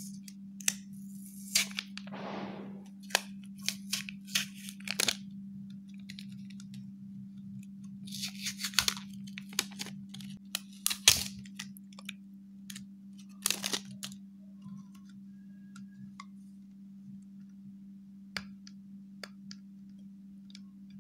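A paper sticker label being peeled by hand off a clear plastic jar without heating, in short crackling rips and clicks with a few denser bursts, over a steady low hum.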